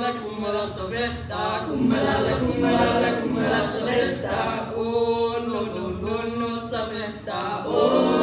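Young people's voices singing, drawn out and chant-like, carrying on through the whole stretch with brief dips.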